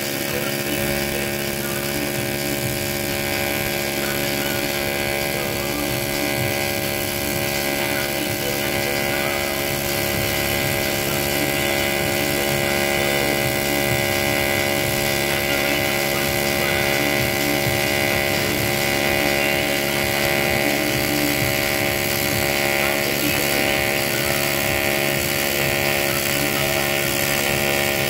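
AC TIG welding arc on aluminium, burning steadily with an even buzzing hum while the bead is run and filler rod is fed in.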